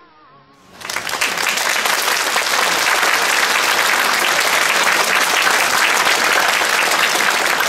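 The last note of a sung melody fades, then about a second in an audience breaks into loud, steady applause that keeps going.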